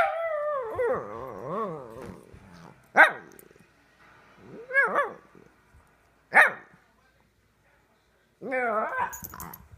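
Alaskan Klee Kai puppy barking and vocalizing in play. It opens with a sharp bark that runs into a long wavering, up-and-down yowl, then gives short sharp barks about three and six seconds in, a rising-and-falling call in between, and a quick run of calls near the end.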